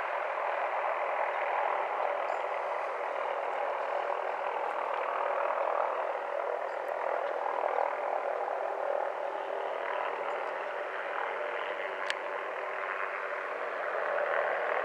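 Small helicopter working an aerial trimming saw on a long line, heard at a distance as a steady rushing drone.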